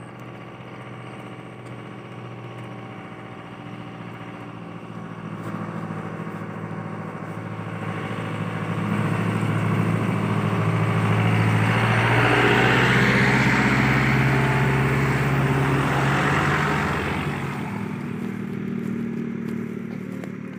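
Motor vehicle engine approaching and passing close by, its hum and tyre noise swelling to a peak a little past halfway, then fading as it moves off.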